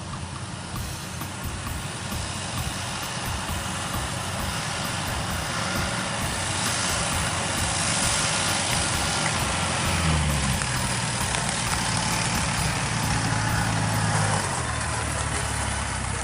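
Heavy farm-machinery engine running, growing louder over the first half. A deeper, steady engine note comes in a little past the middle and drops away near the end.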